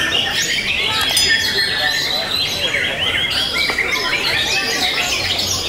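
Several caged white-rumped shamas (murai batu) singing at once, a dense, overlapping chorus of quick whistles and chirps, with a murmur of voices beneath.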